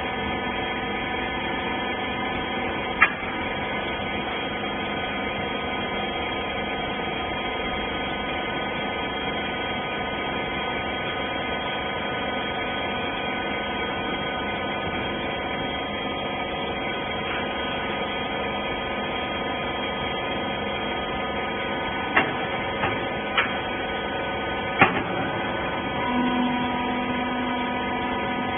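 Rag compression baler's hydraulic power unit running with a steady hum. There are a few sharp clicks or knocks, one about three seconds in and several close together near the end, and a higher steady tone joins in just before the end.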